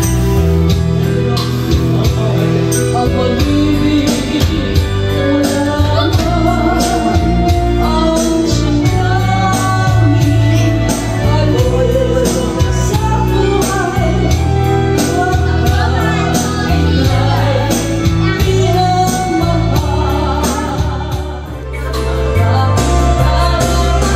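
A woman singing karaoke into a microphone over a backing track with a steady beat. Near the end the music drops away briefly, then picks up again.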